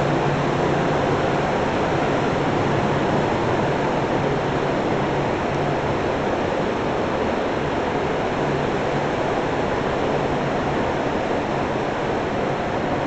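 Steady machine noise with a low hum running underneath, unchanging throughout.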